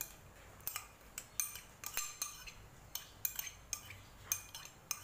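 Metal spoon clinking and scraping against a ceramic bowl in a quick, irregular run of light taps as soaked dried shrimp are spooned out of it.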